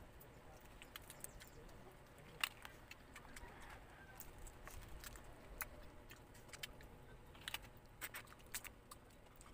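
Faint cracking and wet clicking of cooked crab shell being broken apart by hand and sucked, a scatter of small sharp cracks with one louder crack about two and a half seconds in and a cluster near the end.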